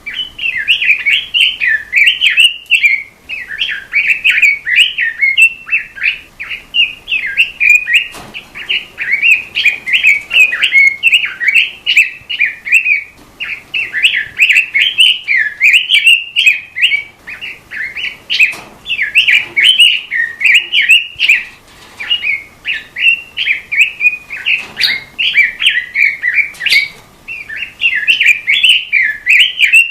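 Robin singing a continuous, fast warbling song of rapid chirps and trills, with short pauses between phrases.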